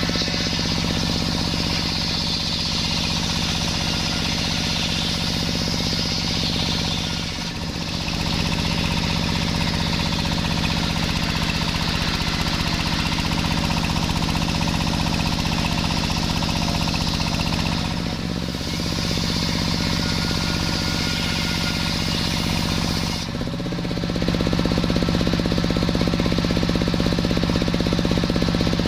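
Sawmill machinery running at a steady hum with a fast rattling pulse while the saw cuts a waru log. The sound briefly dips three times.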